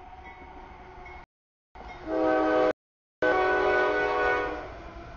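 CSX freight locomotive horn sounded for the grade crossing: a short blast about two seconds in, then a longer one that fades toward the end, a chord of several tones. Crossing bells ring faintly before the horn, and the sound drops out completely twice for about half a second.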